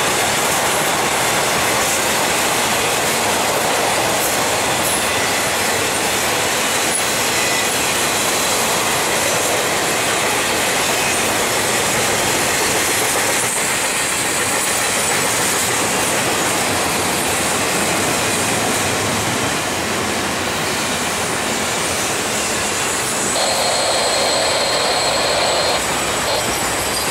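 Norfolk Southern intermodal freight train's well cars rolling past, a steady rush of steel wheels on rail with thin, high wheel squeals, and a louder squealing tone for a couple of seconds near the end.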